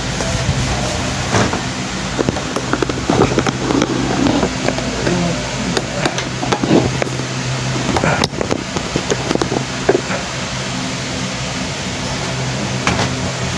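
Steady low hum of a running electric stand fan, with scattered rustling and soft knocks from bedding and bodies shifting as someone is helped to sit up on a bed.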